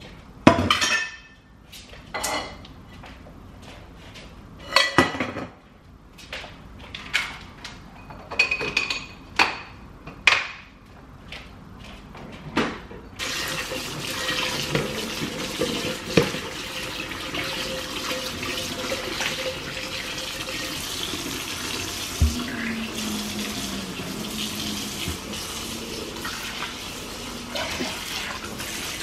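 Dishes and kitchen utensils clinking and knocking, a dozen or so sharp separate hits. About halfway through, a kitchen tap starts running steadily into a stainless steel sink while a pan is scrubbed with a dish brush, with occasional knocks of crockery.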